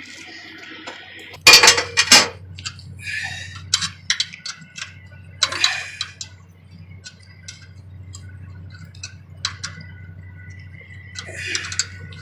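A steel wrench clanking and clinking on metal as it is picked up and used to tighten a nut on a bolt. The loudest clanks come about one and a half seconds in, followed by scattered lighter metal clicks.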